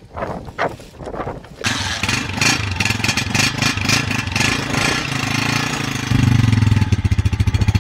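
Honda CG 125's single-cylinder four-stroke engine starting about one and a half seconds in and running at idle, then revved higher and louder about six seconds in.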